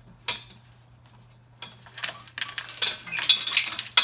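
Steel lifting chain on an engine hoist clinking and rattling as it is handled, with one sharp click shortly after the start and a dense jangling over the last second and a half.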